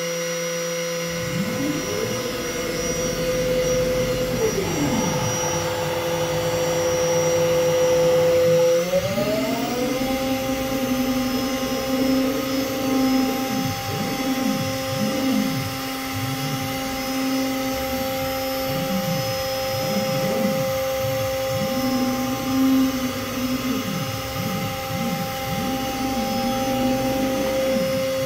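Spindle of a DIY four-axis CNC router running with a steady whine that steps up in pitch about nine seconds in, while the axis drive motors whine in repeated rising and falling sweeps as the gantry moves.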